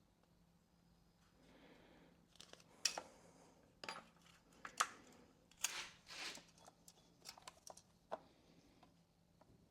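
Faint workbench handling noises: scattered clicks, taps and short scrapes of hand tools and small metal parts, busiest in the middle.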